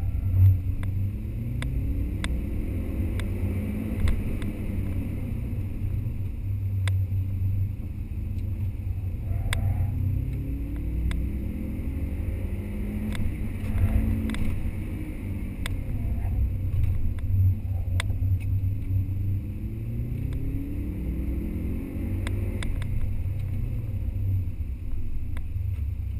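Subaru Impreza's flat-four engine heard from inside the cabin, running with a heavy low drone and revving up under acceleration several times, with scattered sharp ticks and knocks.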